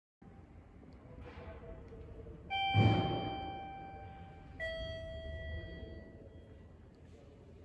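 Two-note electronic chime in a station concourse: a higher note about two and a half seconds in, then a lower note about two seconds later, each ringing on and fading. A dull thump lands just as the first note sounds, the loudest moment, over low hollow room noise.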